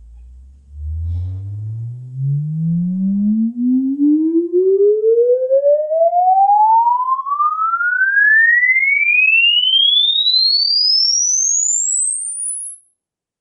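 Room EQ Wizard sine sweep played through a Klipsch RP-160M bookshelf speaker: a single pure tone gliding steadily upward from a deep bass hum to a high whistle, then cutting off abruptly near the end. This is a frequency-response measurement of the speaker.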